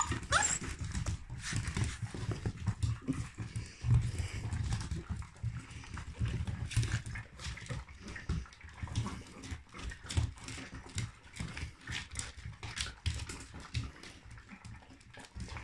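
Puppies eating dry kibble together: many quick crunches and clicks, over the scuffle and thud of paws on a wooden floor. A short rising puppy whine right at the start.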